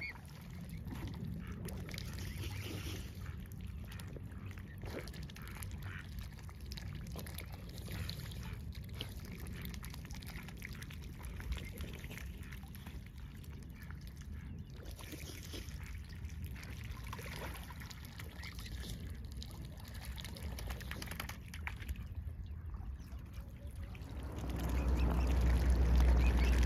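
Mute swan cygnets dabbling and feeding in shallow water: light scattered splashing and water dribbling from their bills over a steady low rumble. Near the end the low rumble grows clearly louder.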